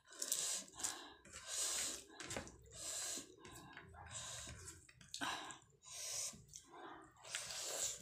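Wet squelching and smacking of a hand mixing rice with cauliflower curry on a plate, along with close-up chewing, in a series of short irregular bursts.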